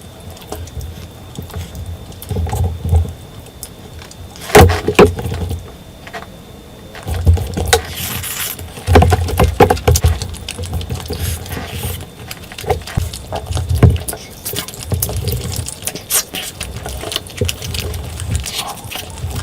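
Close-up eating sounds: wet chewing and smacking of a mouthful of curry and rice, coming in irregular bursts with sharp mouth clicks.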